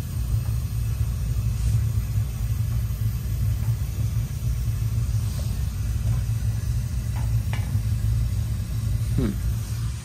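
Atmospheric gas water heater's main burner firing, freshly relit: a steady low rumble of the gas flame.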